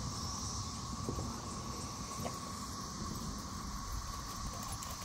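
Steady, unbroken drone of a cicada chorus from the surrounding trees, over a low rumble of wind on the microphone.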